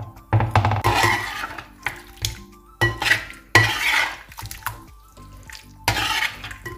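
Metal spatula and spoon scraping and clinking against an aluminium uruli while stirring a watery bone-and-meat curry, in about four spells, over soft background music.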